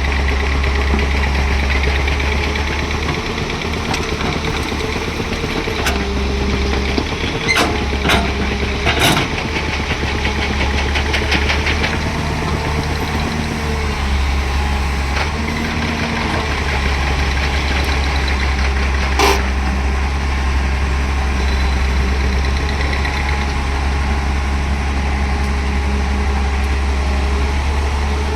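Excavator's diesel engine running steadily, its note shifting as it works, with a few sharp knocks: a cluster about eight seconds in and one more about nineteen seconds in.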